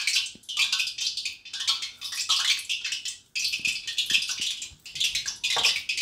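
Soft, loose gram-flour dough being squeezed and kneaded by hand in a stainless steel bowl: repeated sticky, wet squishing, about two or three squeezes a second, with a brief pause a little past halfway.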